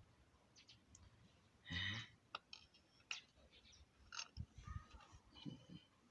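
Faint clicks and light knocks of metal engine parts being handled during piston fitting, with a short louder burst of noise about two seconds in.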